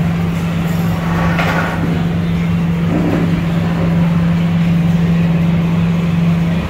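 Loud, steady low mechanical hum from a motor or engine, with a short burst of higher noise about a second and a half in.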